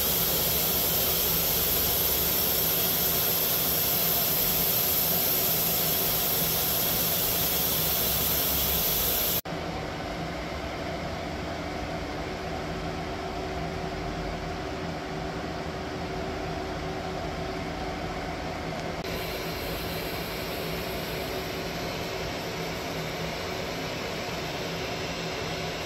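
Industrial machinery running steadily with a strong high hiss. About nine seconds in the sound cuts abruptly to a quieter, steady hum.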